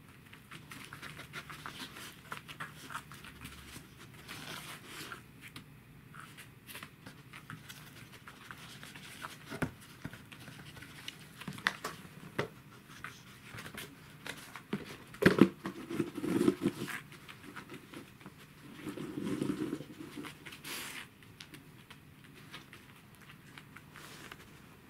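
Welsh corgi nosing and tipping a stacked plastic box on a wooden floor: scattered knocks and scrapes of the plastic against the floor, with the dog sniffing and panting. The loudest cluster of knocks comes about fifteen seconds in.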